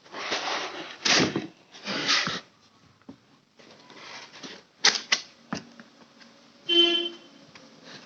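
Polystyrene foam (thermocol) packing being handled and pulled from a cardboard box: bursts of rustling and scraping, a few sharp clicks, and a short squeak about seven seconds in.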